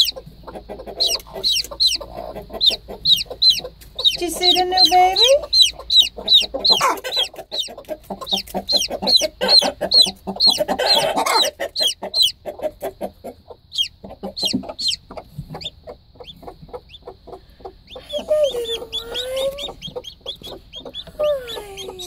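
Newly hatched chick peeping: loud, high cheeps that each slide downward, about three a second, in runs with short breaks.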